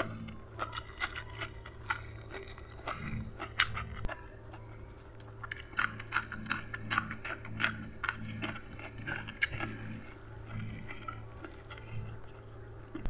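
Close-miked eating: a person biting and chewing food, with many short crisp crunches and clicks, busiest in the middle, over a faint steady low hum.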